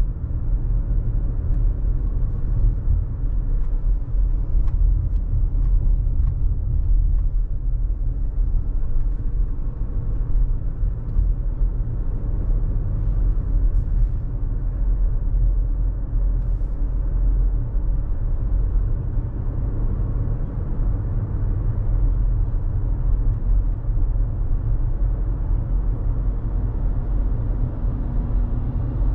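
Car driving along city streets: a steady low rumble of engine and road noise.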